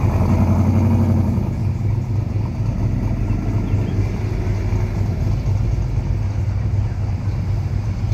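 Cars driving slowly past at low speed, a deep engine rumble that is loudest in the first second and then runs steadily.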